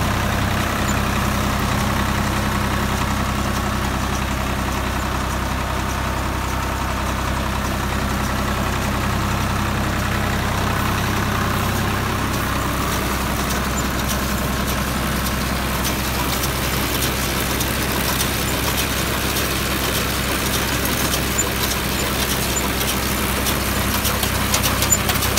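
Swaraj 744 XM tractor's diesel engine running steadily, with a few short clicks near the end.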